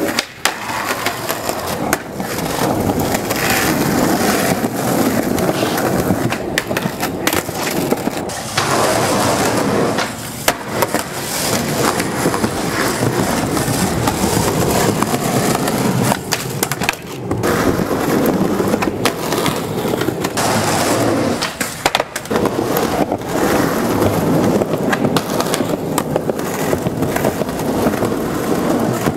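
Skateboard wheels rolling over rough concrete, with sharp clacks of the board popping and landing. The rolling noise breaks off abruptly several times.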